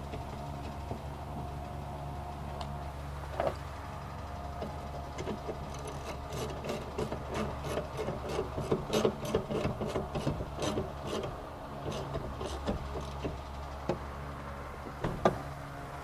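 Light clicking and rubbing of plastic and metal parts inside a minivan's sliding door as the window glass is fitted back onto its regulator. A quick run of clicks, about four a second, fills the middle, over a steady low hum.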